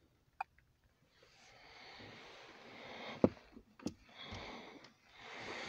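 Sniffing and breathing close to a phone microphone inside a car: several hushed swells about a second long with short gaps, and two sharp clicks a little over three seconds in, the first the loudest, as the phone is handled.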